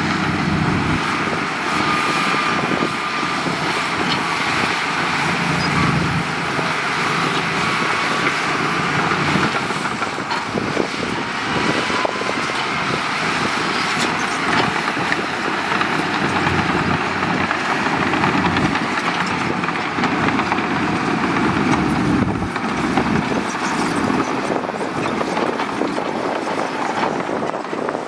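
Heavy diesel earthmoving machinery running steadily, with a faint high whine that drifts slowly in pitch.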